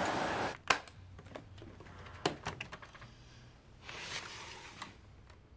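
Street traffic that cuts off within the first half second, then a sharp click followed by lighter clicks and knocks, and a soft swish about four seconds in: an attaché case being handled on a desk, its latches snapped and its lid swung open.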